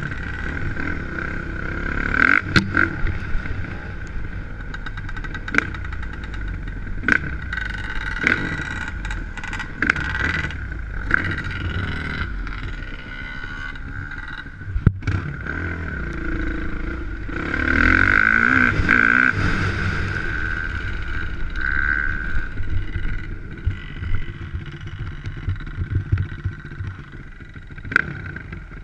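Dirt bike engine running as it is ridden over a rough dirt trail, heard up close from a camera on the bike, with many sharp knocks and clatter. The engine grows louder for a couple of seconds past the middle.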